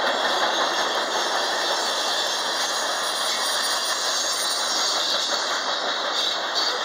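Freight cars of a BNSF mixed freight train rolling past at speed: steady noise of steel wheels running on the rails.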